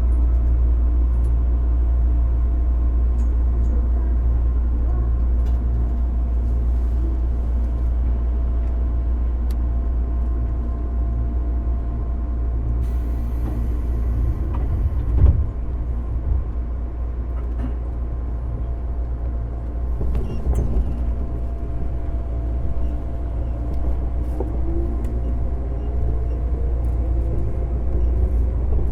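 Running sound inside a JR 205 series electric motor car fitted with MT61 external-fan traction motors: the train runs with a steady low rumble and a faint steady whine. There is a single louder thump about halfway through, and a rising whine near the end.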